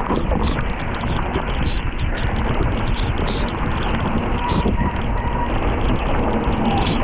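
Mountain bike descending a wet dirt downhill trail at speed: steady wind rush on the microphone over the bike's clatter on rough ground, with a few sharp knocks.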